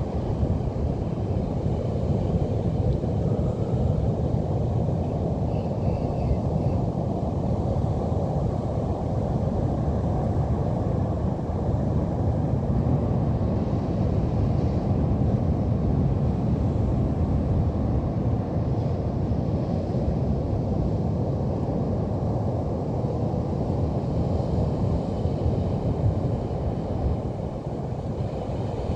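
Pacific Ocean surf on a beach: a steady low rushing noise that swells and eases slowly, dipping briefly near the end.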